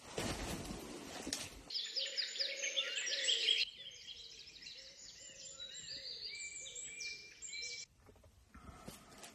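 A rushing noise for the first second and a half, then birds chirping in quick falling notes for about six seconds, stopping abruptly near the end.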